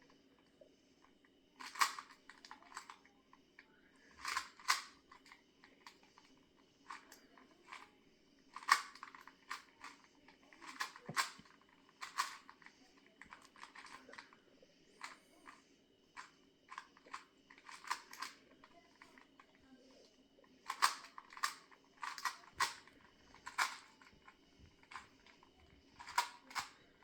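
Plastic 2x2 Rubik's cube being turned by hand: irregular clicks and clacks of the layers, in short flurries of a few quick turns separated by pauses.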